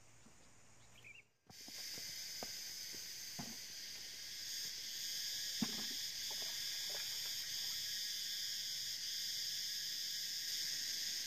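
Steady high-pitched chorus of insects that starts suddenly about a second and a half in, with a few light knocks and one sharper knock about halfway through.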